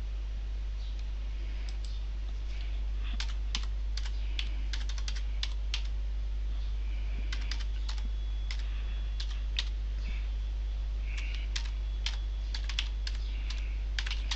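Typing on a computer keyboard: irregular key clicks, some in quick runs, over a steady low hum.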